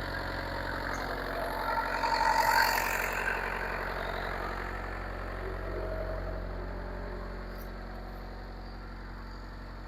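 Bobcat 334 compact excavator's diesel engine idling steadily on fresh oil with good oil pressure, swelling briefly about two seconds in. It sounds good, and no leak shows.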